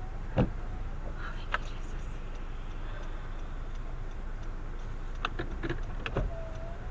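Steady low hum inside a car stopped in traffic, its engine idling, with a few scattered sharp ticks, clustered near the end.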